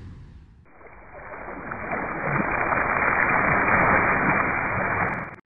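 Muffled rushing-water sound effect, swelling over a few seconds and then cutting off abruptly near the end.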